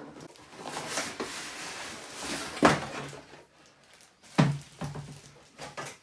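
Cardboard box and packaging handled as a boxed sparkling water maker is lifted out: rustling and scraping, with two sharp knocks a couple of seconds apart around the middle.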